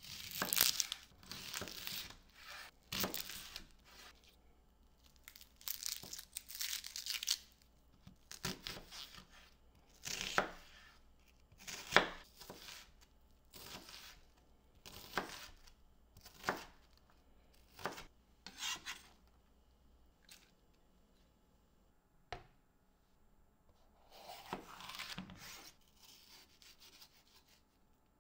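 Knife cutting vegetables on a cutting board: irregular single cuts about a second or two apart, mixed with a few longer rustling, tearing sounds, and a quieter spell with one click about three quarters of the way through.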